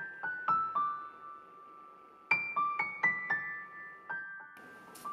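Background piano music: two short runs of single struck notes stepping down in pitch, each note ringing on.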